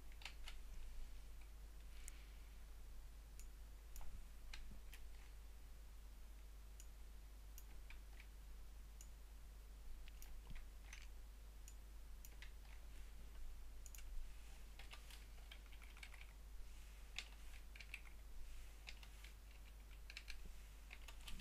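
Faint computer keyboard keystrokes and clicks while code is copied and pasted: scattered single strokes that bunch into quick runs in the second half.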